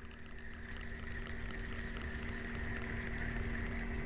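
A steady mechanical drone with two held low tones over a rushing wash of noise, like a distant motor running without change.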